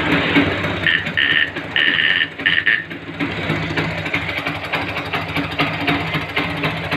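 Motorcycle engine idling steadily as it warms up. About one to three seconds in, four short high beeps sound over it.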